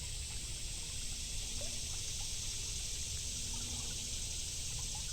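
Creek water trickling steadily, heard as an even high hiss with a faint low rumble beneath.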